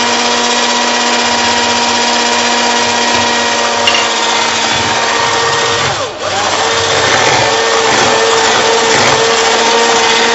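Electric hand mixer beating cream in a bowl, its motor whining steadily. About six seconds in the whine dips and swoops briefly, then it runs on at a changed pitch.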